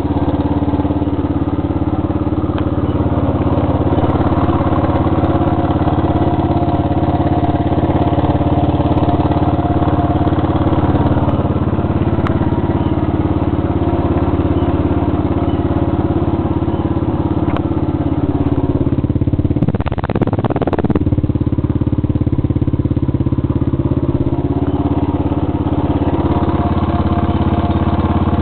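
A Honda XR80's small four-stroke single-cylinder engine idling steadily, heard close up. About twenty seconds in, a brief rough noise cuts across it.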